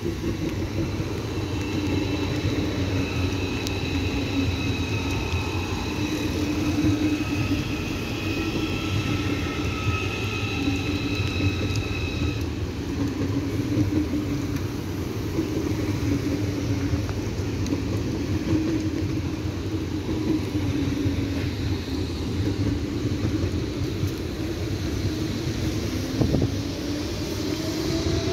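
ICE high-speed train passing through a station, a steady rolling rumble with high whining tones during the first half. Near the end a rising whine sets in.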